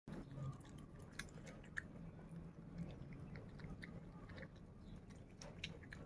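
A piglet chewing a mouthful of noodles: a quick, irregular run of small wet clicks and smacks.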